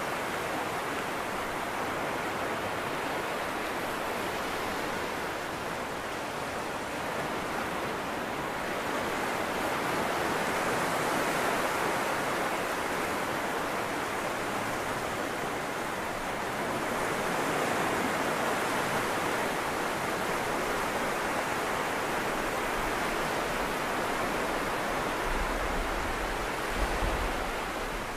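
Small waves breaking and washing up a flat sandy beach: a steady surf noise that swells twice as waves come in. A low rumble joins it near the end.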